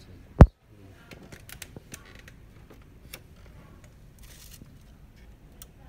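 Handling noise around a printer's plastic housing: one loud, sharp thump about half a second in, then light clicks and short rustles.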